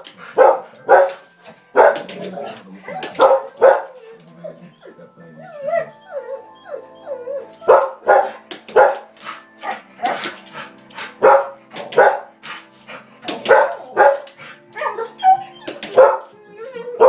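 Rottweiler barking repeatedly and loudly at a television, about one or two barks a second, with a pause of about three seconds after the first four seconds before the barking resumes. The television's soundtrack music plays underneath.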